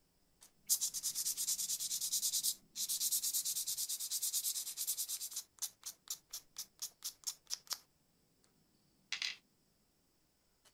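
Abrasive paper rubbed back and forth over a small metal lighter part held in the fingers. It comes in two long runs of rapid scratching strokes, then about a dozen slower, separate strokes, and one short rub near the end.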